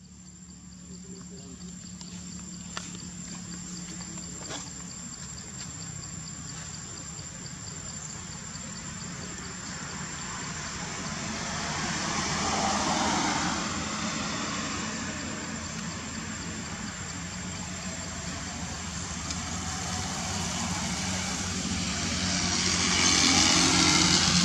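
A steady low engine hum, like a vehicle idling, with a thin high whine over it; a broad rushing noise swells about halfway through and again near the end.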